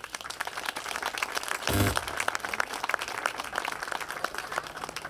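Audience applauding: many hands clapping in a dense, continuous patter. A brief low thump sounds about two seconds in.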